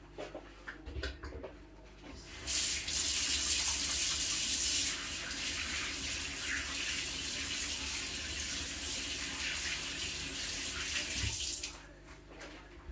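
Kitchen tap running into a sink, turned on a couple of seconds in, easing a little lower after a few seconds and shut off near the end, with a few small handling clicks before it.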